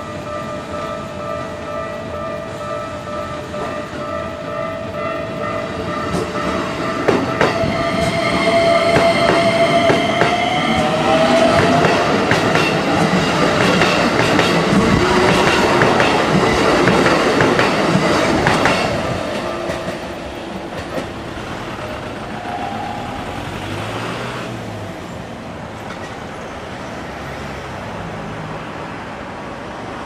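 A Japanese level-crossing warning bell ringing steadily as a Keikyu 1000-series stainless electric train approaches and passes close by. A rising whine is heard as the train comes in, then the wheels clack over rail joints, loudest for about ten seconds before fading as the train moves away.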